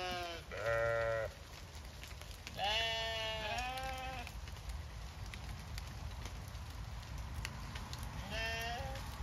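Zwartbles sheep bleating: five drawn-out bleats in all, one ending right at the start, one about a second in, two back to back around three to four seconds in, and one more near the end.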